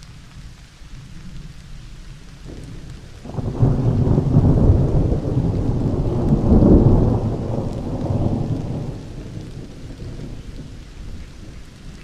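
Field recording of a swamp thunderstorm: steady rain with no hard drumming of drops. About three seconds in, a long roll of thunder starts suddenly, peaks in the middle and fades away over several seconds.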